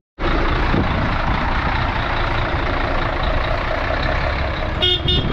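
Mercedes-Benz Actros truck's diesel engine running steadily. Two short high beeps sound a little before the end.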